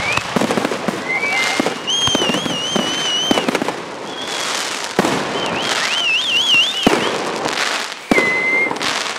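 Fireworks display: aerial shells bursting with sharp bangs and crackle, with three or four high, warbling whistles from whistling fireworks, one of them short and steady near the end.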